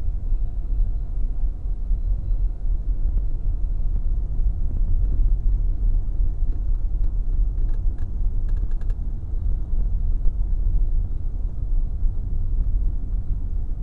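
Road noise inside a moving car: a steady low rumble of tyres and engine, with a brief run of light clicks about eight seconds in.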